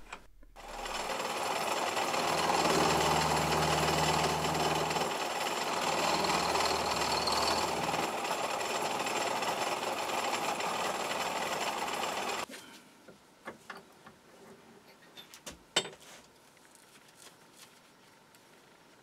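Dore Westbury milling machine running with a ball-nose cutter milling a radius into the corners of a brass crank disc, a steady cutting noise. It cuts off suddenly about twelve seconds in, and a few light clicks follow.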